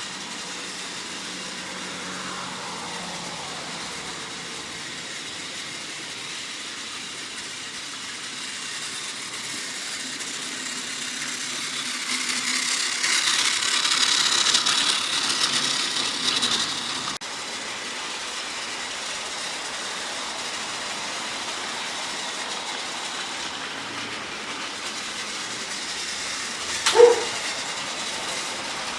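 Trackmaster Peter Sam toy engine's AA-battery motor with its flat drive unit, running steadily around plastic track with its trucks in tow. It grows louder for a few seconds near the middle, and there is one short sharp sound near the end.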